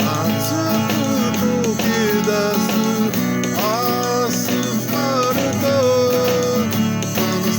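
A 1960s-style girl-pop song, in a passage without words: a guitar-led band accompaniment under a gliding lead melody line.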